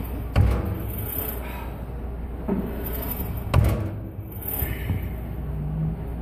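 Two heavy knocks about three seconds apart, with a lighter one between them, over a steady low hum: the leg press machine's weight stack setting down.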